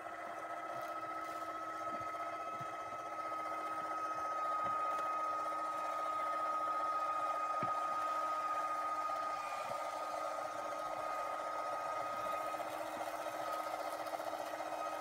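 Litter-Robot Open Air self-cleaning litter box running its cleaning cycle: the electric drive motor turning the litter globe with a steady whine over a lower hum, and a few faint ticks. The higher whine fades out near the end.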